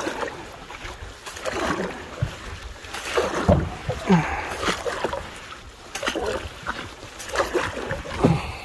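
Wooden canoe paddles stroking through calm lake water, with a splash and swirl at each stroke, repeated every second or two by the two paddlers.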